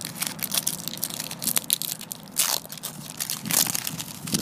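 A 1999 Chelsea FC football card packet being torn open by hand, its wrapper crinkling and crackling irregularly, with a couple of louder rips.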